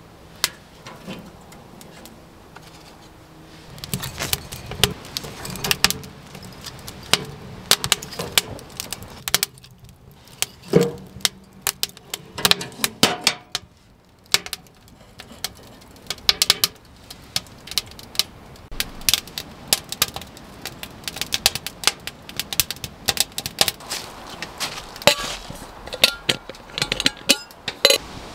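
A wood fire crackling and popping inside the firebox of a stainless steel wood stove, with irregular sharp clicks all through, mixed with metal clinks and knocks from the stove's door and fittings being handled.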